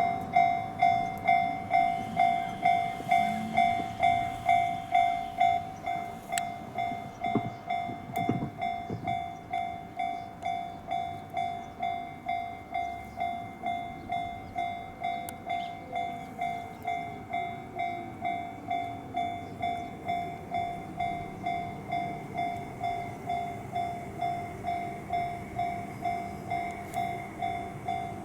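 Japanese railway level crossing's electronic warning bell ringing at about two strokes a second, the signal that a train is approaching. A few knocks sound about seven and eight seconds in, and a faint falling whine comes around the middle.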